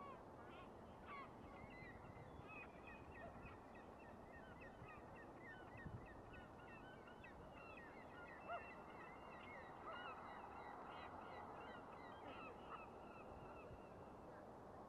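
Faint flock of geese honking, many short calls overlapping one another without a break.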